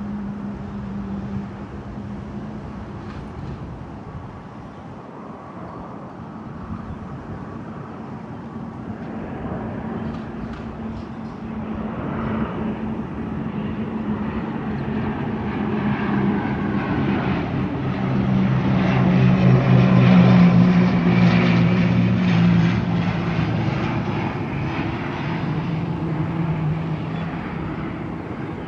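ATR 72-600 turboprop airliner's engines and propellers droning as it comes in to land, a steady low propeller hum that grows louder to a peak about twenty seconds in and then fades as the aircraft passes.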